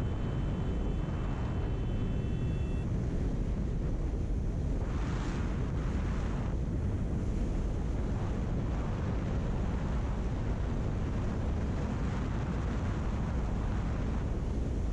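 Steady wind rush buffeting the microphone of a camera on a motorcycle moving at road speed, low and even throughout, with a brief louder hiss about five seconds in.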